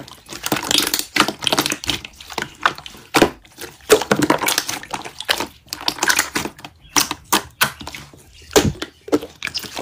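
Hands squeezing, stretching and poking a soft slime, making a rapid, irregular string of sticky clicks, crackles and pops.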